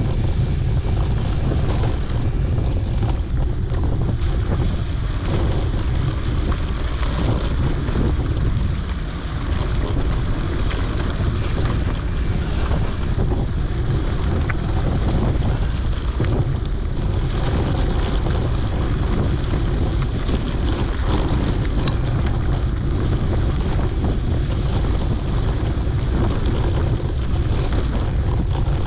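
Steady, loud wind rumble buffeting a GoPro's microphone as a mountain bike rides along.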